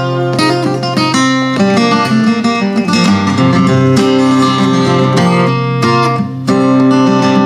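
Takamine acoustic guitar strummed and picked steadily in an instrumental passage between sung verses.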